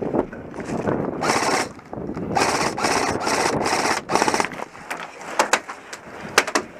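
Airsoft automatic electric gun firing rapid full-auto bursts, a fast mechanical rattle: a short burst, then a longer run of bursts, followed by a few sharp single cracks near the end.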